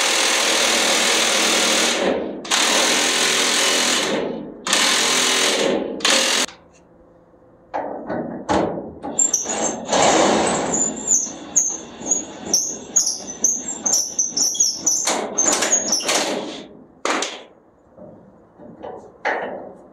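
Impact wrench running in three bursts of about two seconds each and a short fourth one, loosening the nuts on a truck's leaf-spring U-bolts. After it come irregular clinks and scrapes of metal tools and parts.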